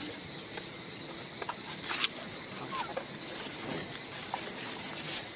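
Outdoor ambience: a steady faint hiss, with a few brief thin chirps or squeaks and one sharp click about two seconds in.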